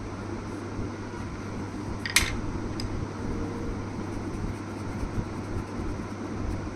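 Steady fan-like room hum with a low, even drone underneath, and one sharp click about two seconds in.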